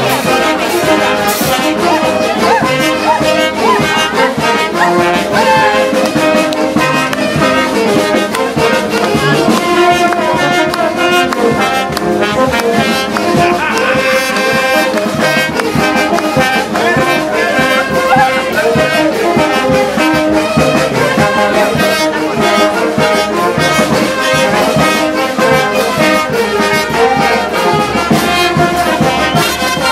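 Brass band playing without a break, trumpets and trombones carrying the tune.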